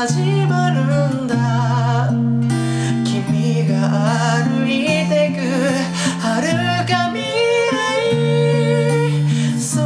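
Acoustic guitar strummed as accompaniment to male voices singing a Japanese pop song, with long, wavering held notes.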